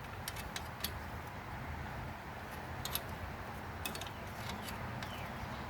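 A few light, sharp clicks of hand tools and metal parts being handled, scattered over a steady low hum.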